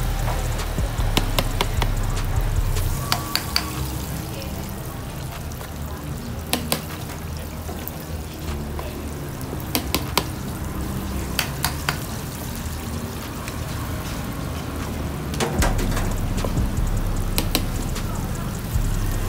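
Sharp, scattered clicks of a utensil knocking against the batter and flour bowls as chicken wings are battered and dredged, over background music with a low bass.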